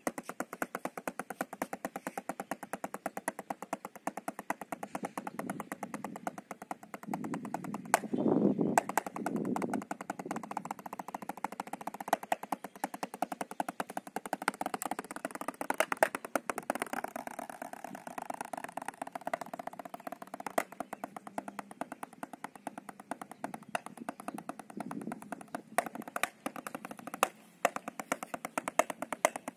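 Wooden drumsticks playing fast, even strokes on a drum practice pad: a steady run of sticking exercises with no let-up.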